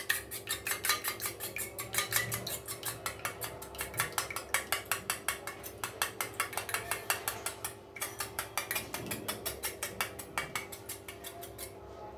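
A metal spoon beating an egg in a small stainless steel bowl, clinking against the bowl at about six strokes a second, with a brief pause about two-thirds of the way through. A steady hum runs underneath.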